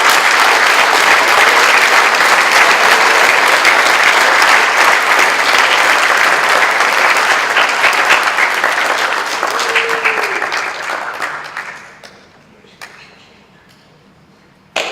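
Audience applauding, the clapping dying away about eleven seconds in. After it comes a quieter stretch with a few faint knocks and one sharp knock near the end.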